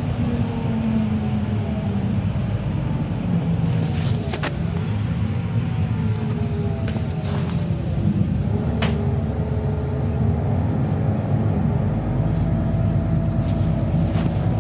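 City bus driving, heard from inside the passenger cabin: a steady low engine rumble with faint whining tones that glide up and down in pitch as the bus changes speed, and a few sharp clicks or rattles.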